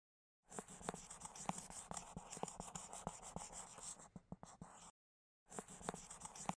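Felt-tip marker writing, a rapid run of short scribbling strokes for about four seconds. It stops for half a second, then resumes for another second.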